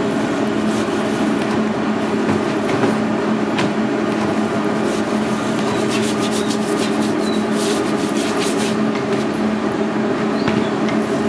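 Loud steady machine drone with a constant low hum, and a run of short scratchy rubbing sounds about halfway through as dry spice rub is worked by hand into raw pig skin.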